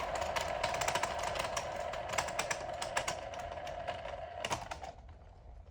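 A board of magnet-tipped fidget spinners spinning together: a steady whir under a rapid, irregular clatter of ticks, both cutting off about five seconds in.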